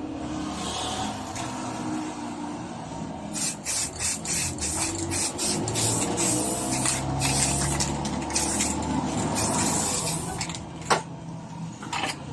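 Hissing in many short, rapid bursts, heaviest from about three to ten seconds in.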